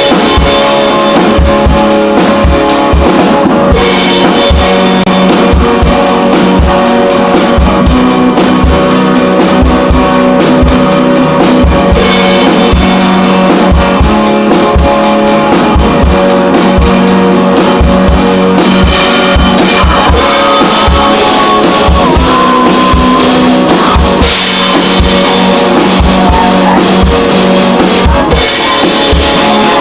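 Band music: a drum kit keeping a steady beat under guitar, running loud without a break.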